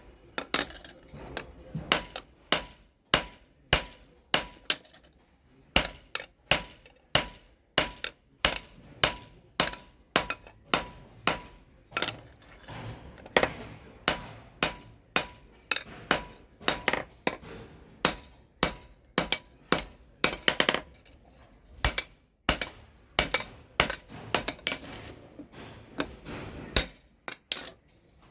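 Hammer blows on steel over an anvil while forging a billhook machete blade, struck about twice a second, each with a short metallic ring. There is a brief pause in the striking a little past the middle.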